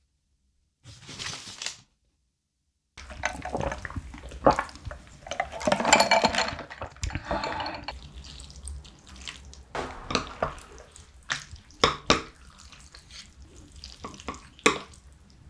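A paper bag rustles briefly about a second in. From about three seconds in, starchy noodle cooking water is poured over a tray of spicy instant noodles with a splashing sound. The noodles are then mixed with chopsticks: wet stirring with scattered clicks and knocks against the tray.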